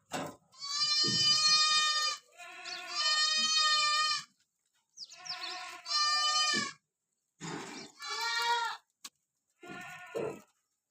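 Goats bleating: about five long, high-pitched calls in a row with short pauses between them.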